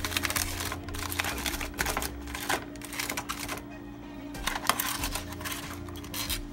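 Aluminium foil crinkling and crackling as a foil packet is pulled open by hand, in two bouts with a short pause between them, over steady background music.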